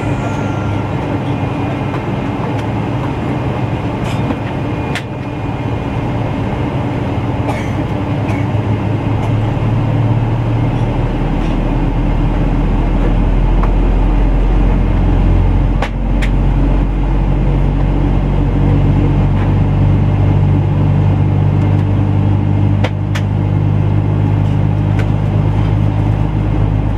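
Boeing 777-200LR's General Electric GE90-115B engine running at taxi power, heard inside the cabin beside the wing as the airliner taxis: a steady low hum with a few held tones. About ten seconds in it swells louder and deeper, and occasional light clicks and knocks come through.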